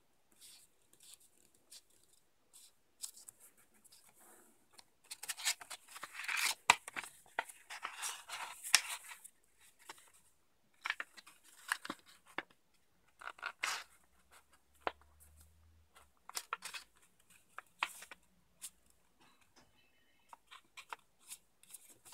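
A printed paper sheet being folded and creased by hand, with crackling and rustling of the paper as fingers press along the folds. The handling is busiest for a few seconds about five seconds in, then goes on as shorter, scattered crackles.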